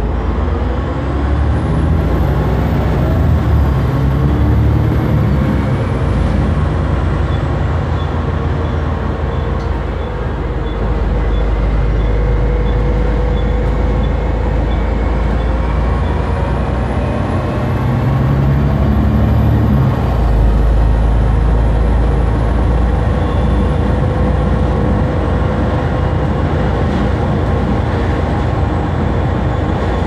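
Bus running on the road, its engine and drivetrain making a really loud noise: a heavy rumble under a thin, high-pitched whine that rises and then falls away twice, once a couple of seconds in and again near the middle.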